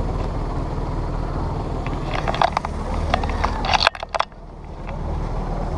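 Steady low rumble of handling and wind noise on an action camera strapped to a dog, with a flurry of clicks and knocks about two to four seconds in and a brief muffled dropout just before four seconds.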